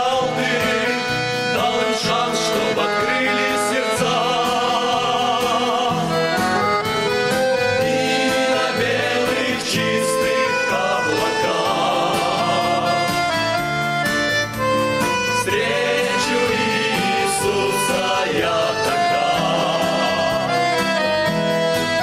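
A men's vocal group singing a Russian gospel hymn in sustained, held notes over instrumental accompaniment.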